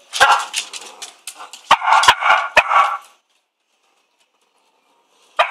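Cavalier King Charles spaniel barking, a quick run of sharp barks over the first three seconds, then stopping for about two seconds before starting again at the very end.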